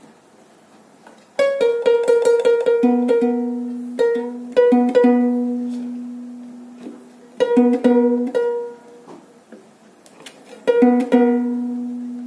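Burmese harp (saung gauk) strings plucked in several quick runs, a higher note and a lower note struck again and again, each left to ring and die away. The plucks check the pitch while the string is tuned by pressing and sliding its cord tie on the harp's neck.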